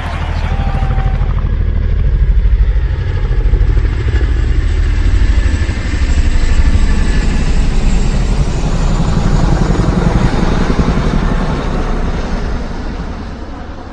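A motor vehicle engine running loud with a fast low throb, swelling and dropping as it moves, then fading away over the last couple of seconds.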